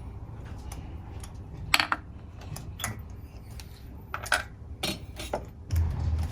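Metal hand tools clinking and clicking as a ratchet, socket and extension are handled at the engine: a scatter of short clicks with a few louder metallic clinks.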